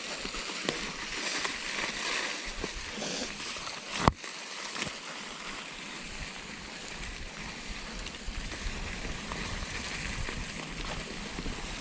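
Creek water running in a steady rush, with one sharp knock about four seconds in.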